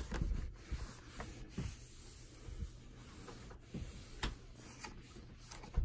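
A cloth wiping down a bunk bed frame: faint rubbing and rustling, with a few light knocks and clicks.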